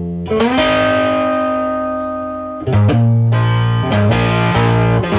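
Background music led by guitar: a held chord that slowly fades, then a rhythmic part with a steady beat coming in a little under three seconds in.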